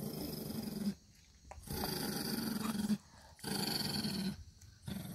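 Shih tzus play-growling in three bouts of about a second each with short pauses between, and a brief fourth near the end.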